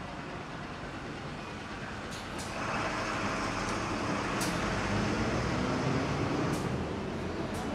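Street traffic noise from a busy city road; a louder rush of passing traffic comes in about a third of the way through and eases near the end, with a few light clicks.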